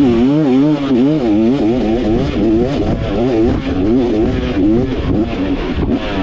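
2024 KTM 300XC two-stroke engine revving up and down over and over, about twice a second, as the dirt bike is ridden hard through a fast trail section.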